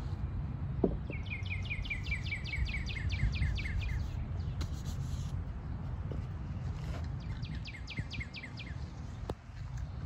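A songbird singing a fast run of repeated down-slurred notes, about five a second, then a shorter run a few seconds later, over a steady low outdoor rumble. There is a short knock about a second in.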